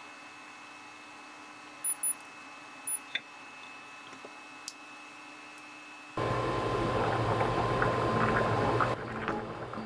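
Steady hum of an induction cooktop with a few sharp clinks against the pot about two and three seconds in, then, about six seconds in, loud bubbling of pasta water at a rolling boil. Faint background music comes in near the end.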